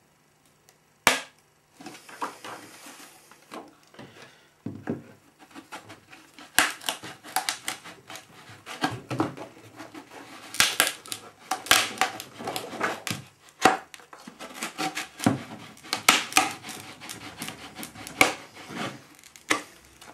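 Glass-cloth and epoxy moulding being wiggled and pulled free of its mould: one sharp crack about a second in, then a long run of irregular crackling and snapping as the part breaks away from the mould surface.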